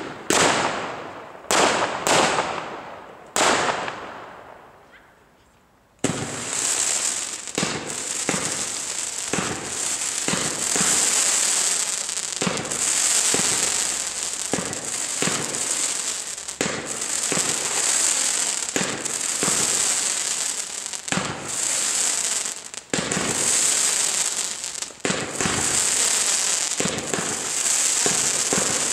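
Consumer fireworks: a few sharp bangs in the first few seconds that die away. After a short pause, a firework cake shoots sparkling tails up in quick succession, giving a dense crackle that swells and fades every second or two.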